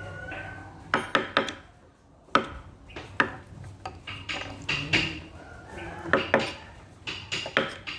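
Hand wood carving: a steel chisel is tapped into wood with a mallet, giving irregular sharp knocks, some with a short metallic ring. There is a brief pause about two seconds in.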